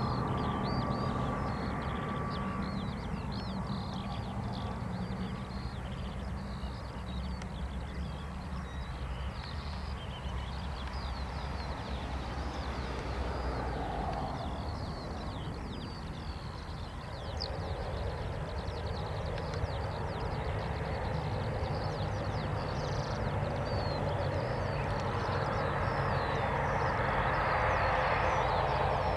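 Airliner engines running at a distance, a steady low rumble with a higher whine building over the last few seconds, while small birds chirp throughout.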